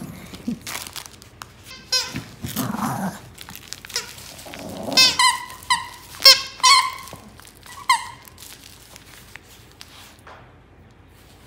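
A dog's squeaky plush toy squeaked in short bursts as a Maltese bites it: a quick run of squeaks about two seconds in, then several louder single squeaks between about five and eight seconds in. Soft rustling of fabric comes in between.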